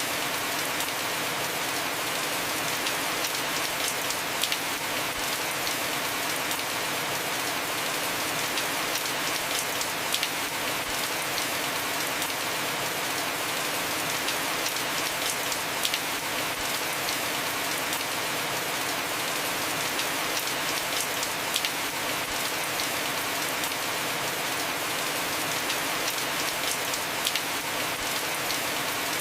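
Heavy rain falling steadily on a roof, an even hiss with many sharp individual drop ticks scattered through it.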